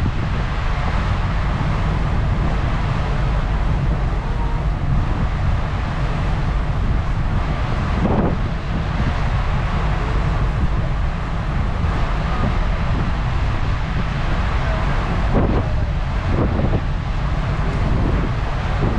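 Wind buffeting the microphone aboard a ferry under way, a steady loud rumble with an even rush of wind and sea above it.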